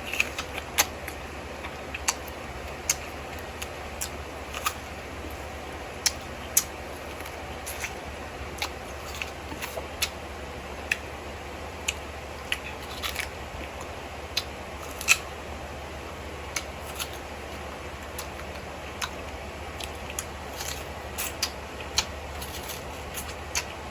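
Close-up eating sounds of a mango mukbang: irregular sharp clicks and crunches from chewing mango, roughly one or two a second, over a steady low hum.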